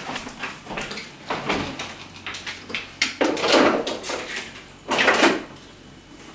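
Refrigerator door opened and things moved about inside it: scattered knocks, rattles and rustles, loudest for about a second starting some three seconds in and again briefly near the end.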